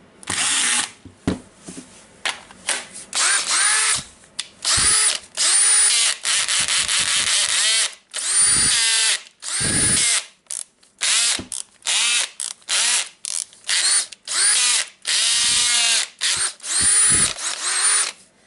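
Makita DDF482 cordless drill run in many short bursts, the trigger pulled and released over and over, the motor whining up to speed and winding down each time. This is a test run after a new armature, brushes and switch were fitted, and the drill is working.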